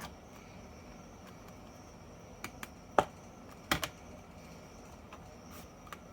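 A few short, sharp clicks and taps over a faint steady hiss, the loudest about three seconds in and a quick pair a little later.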